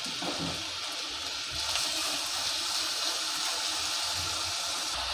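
Grated raw potato sizzling in hot oil in a frying pan as it is stirred with a wooden spatula, the sizzle growing louder about a second and a half in.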